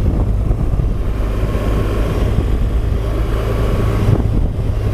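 Motorcycle engine running steadily while riding along a road, with wind noise on the microphone.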